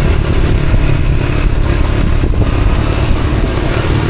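Postie bike's small single-cylinder engine running steadily under way, with a steady rush of noise over it across the whole range.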